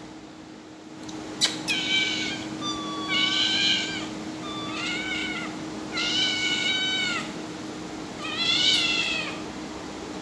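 A cat meowing five times, short high-pitched meows about a second and a half apart, the second and fourth drawn out longer. A sharp click comes just before the first meow.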